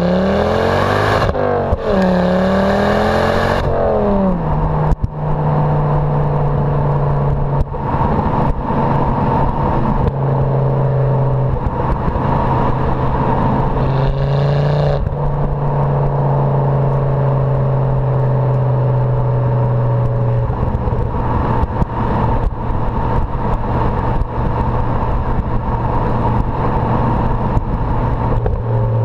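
Ford Focus ST mk2 exhaust, heard at the tailpipe, from its turbocharged 2.5-litre five-cylinder. The engine revs up hard through a quick gear change in the first few seconds with a loud hiss over it. It then settles into a steady drone at cruising speed, with a brief rise and hiss about halfway through and a slight drop in pitch later on.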